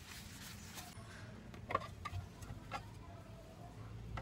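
Faint, light clicks and taps of objects being handled on a tabletop: a few irregular clicks in the middle, over a low steady hum.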